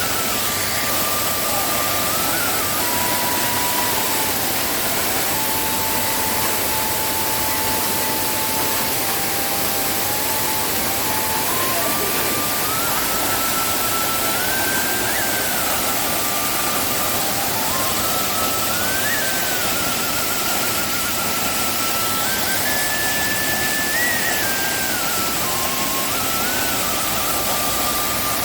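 A waterfall swollen with rainy-season water, rushing steadily and loudly. Over it runs a faint, slow melody of single held notes that step up and down in pitch.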